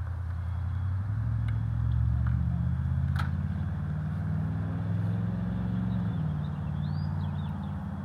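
Low, steady engine drone of a motor vehicle, growing louder over the first two seconds or so and easing off slowly toward the end.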